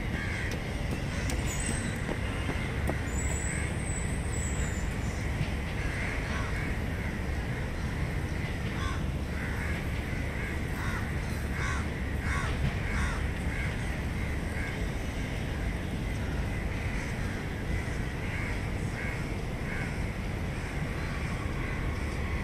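Evening city ambience: a steady low hum of distant traffic, with birds in the trees giving short repeated calls, thickest around the middle and again near the end, and a few thin high chirps in the first few seconds.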